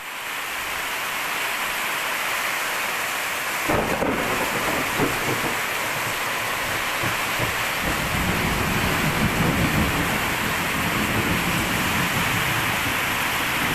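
Torrential rain pouring onto a paved courtyard as a steady, loud hiss. Low rumbling comes in about four seconds in and grows heavier in the second half.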